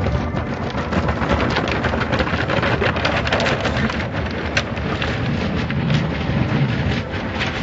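Automatic car wash heard from inside the car's cabin: water spray and wash material beating and sweeping over the windshield and body in a steady, loud rush, with many small hits.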